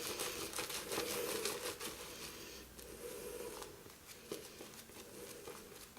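Shaving brush whisking shaving-soap lather in a mug, a soft wet crackling of many small clicks, thinning out and fading over the second half.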